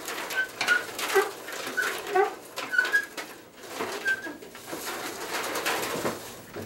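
Hand-cranked metal raffle drum being turned to stir the tickets, giving a string of short squeaks at uneven spacing, with knocks and rattling as it rotates.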